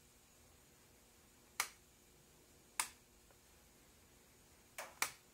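Four sharp clicks from the Sieg X2D mini mill's speed-control knob switch being worked by hand: one about a second and a half in, another a second later, then two in quick succession near the end. No motor runs, because the spindle does not start.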